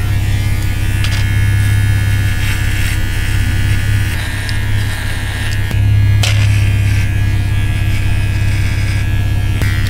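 Electric hair clippers running with a steady buzz while cutting the hair at the back of the head.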